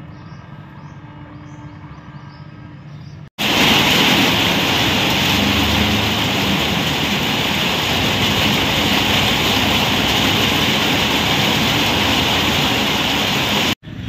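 Heavy rain pouring on a street: a loud, steady hiss that cuts in suddenly about three seconds in, after quieter street noise, and stops abruptly just before the end.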